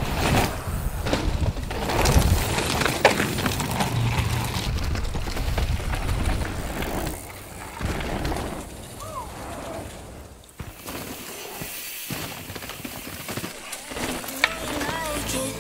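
Mountain bike riding down a dirt trail: tyres crunching and skidding over loose dirt and gravel, with knocks and rattles from the bike. The noise is loudest in the first half and quieter later, with a sharp click near the end.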